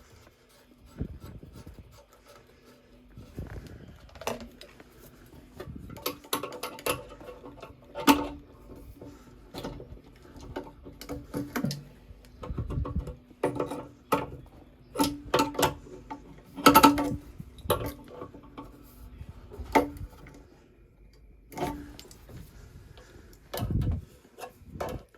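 Irregular clinks, knocks and a few dull thuds of hard parts and tools being handled, with a faint steady hum coming and going underneath.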